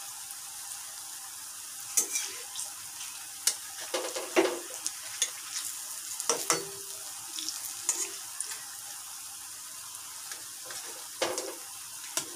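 Banana fritters deep-frying in hot oil in a metal kadai: a steady sizzle, with a metal spatula scraping and clicking against the pan every second or two as the fritters are turned.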